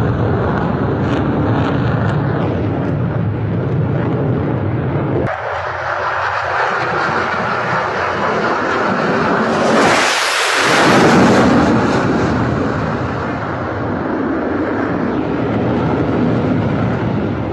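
Fighter jet flying past, its engine noise swelling to a loud peak about ten seconds in and then fading away.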